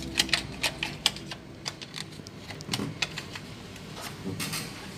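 Irregular light clicks and taps, a dozen or so, loudest in the first second and a half, over a quiet room background.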